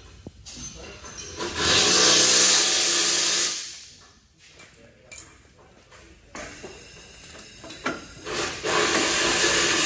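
Two bursts of loud rushing air hiss, each about two seconds long, the second starting near the end, with quieter scraping and clicks between them.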